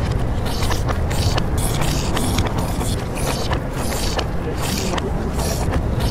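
Live improvised experimental noise soundtrack: a dense, constant low rumble with irregular bursts of hiss breaking in several times a second.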